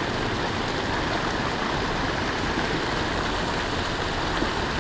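Steady rushing of fast-flowing water in an urban creek or channel.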